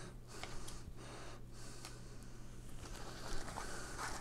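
Faint rustling of a soft non-woven fabric pouch being handled between the fingers, a little louder near the end, over a steady low hum.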